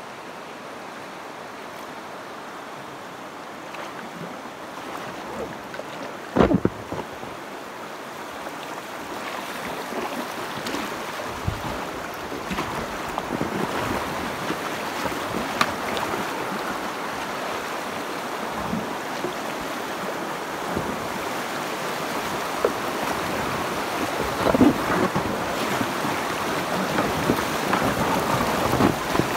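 Shallow river water rushing and splashing around a packraft drifting through rocky riffles, growing louder as the water gets rougher. A few sharp knocks or splashes come through, about six, eleven and twenty-four seconds in.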